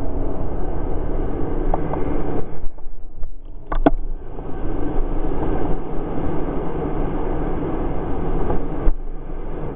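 Ski-Doo snowmobile running under throttle through deep powder. The sound drops away briefly about two and a half seconds in, with a sharp tick near four seconds, then picks up again.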